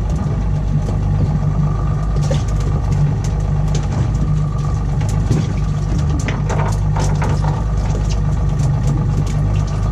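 Boat engine idling steadily, with scattered light clicks and knocks over it.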